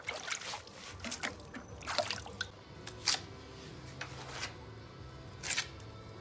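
A brick being soaked in a bucket of water before it is laid, with splashing and dripping. Several short, sharp scrapes and knocks are spread through.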